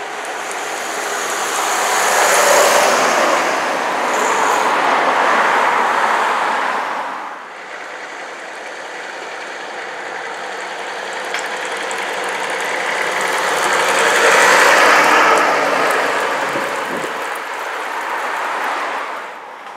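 Road vehicles driving past, vintage buses among them, with engine and tyre noise. It comes in two swells: the first builds and then drops off suddenly about seven seconds in, and the second peaks about fifteen seconds in and fades near the end.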